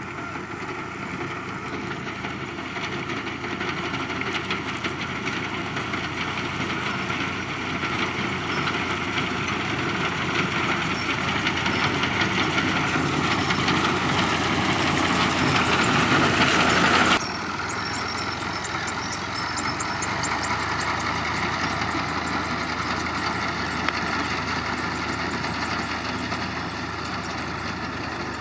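Combine harvester running while harvesting wheat, a steady engine and machinery noise. It grows gradually louder, drops suddenly about seventeen seconds in, then carries on steadily.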